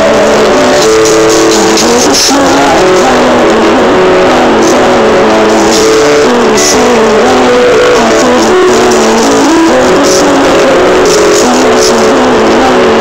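Loud live band music: a woman singing over electric guitars, with a steady stream of cymbal-like hits.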